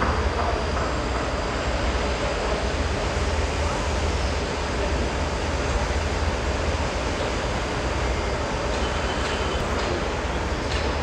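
Steady outdoor ambience of a large stadium construction site: a continuous low rumble with a broad hiss over it, and a few faint ticks near the end.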